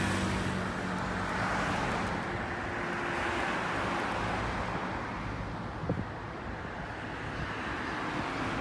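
Road traffic on a wide multi-lane city road: a steady wash of passing cars. It includes one brief knock about six seconds in.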